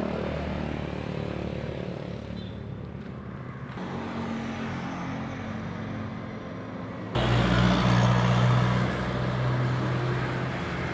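Engines of passing road traffic, motorbikes among them, running steadily. The sound jumps suddenly louder about seven seconds in, then eases off.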